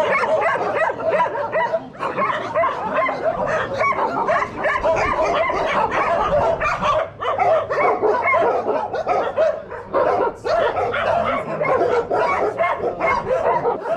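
Many dogs barking, yipping and whining at once, a dense, continuous chorus of overlapping barks from the shelter's dogs.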